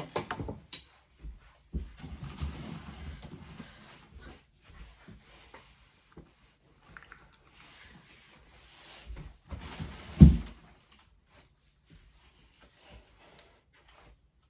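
Scattered rustles and light knocks, with one loud, dull thump about ten seconds in.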